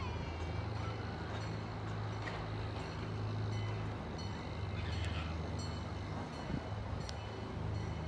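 Diesel locomotive engine of a zoo train running steadily as the train approaches, a low even drone. A few faint high squeaks come in the first second.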